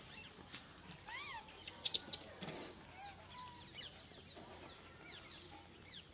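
Faint birds chirping, many short falling calls one after another. A few sharp clicks or knocks come about two seconds in.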